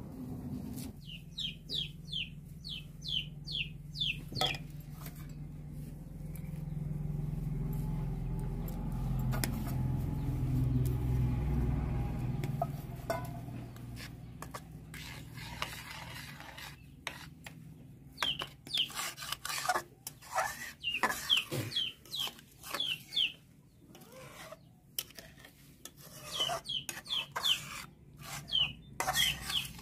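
A metal ladle stirring thick curry in a steel kadai, with scraping and clicks against the pan. Runs of short, high bird calls come near the start and again through the last third, and a low rumble swells and fades in the middle.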